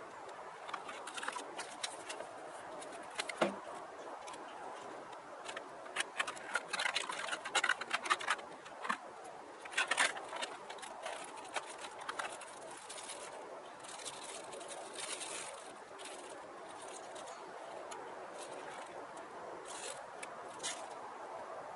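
Plastic packaging being handled: a clear plastic tray and its film wrapping crackling and clicking as a model railway coach is taken out of its box. The crackles come thick and fast in the first half, then give way to softer rustling of the plastic wrap.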